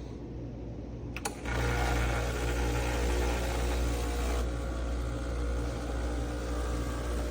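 Breville Barista Express espresso machine running with a steady low mains-frequency hum; a click about a second in, then the hum grows louder and fuller as the machine's pump or motor comes on.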